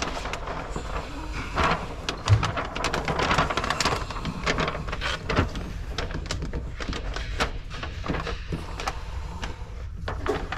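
A large sheet of window tint film rustling and crackling as it is roughly handled, with irregular crinkles and scattered knocks throughout.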